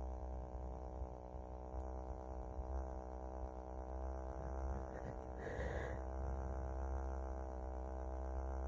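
Vibrator held against the outside of the nose, buzzing steadily at one pitch, with a short breathy sound a little past halfway.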